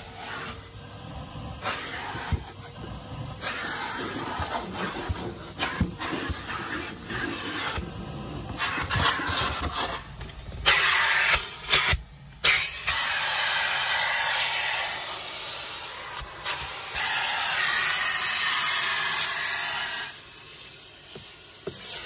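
Henry vacuum cleaner in use: rustling and knocks of handling for about ten seconds, then a loud hiss of air rushing into the hose nozzle for about nine seconds, cut off briefly once near its start.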